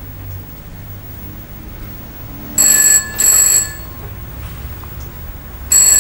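A telephone bell rings in a double-ring pattern: two short rings about two and a half seconds in, then another pair near the end.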